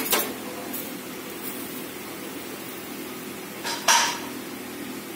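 Steady hum of a lit gas stove burner roasting a tomato on a wire grill. Two sudden sharp sounds break in, one right at the start and a louder one about four seconds in.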